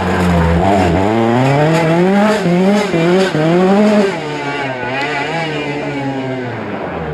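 Rally car engine revving hard, its pitch climbing and dropping several times in quick succession through the first few seconds. After about four seconds it turns quieter, with the pitch sliding lower.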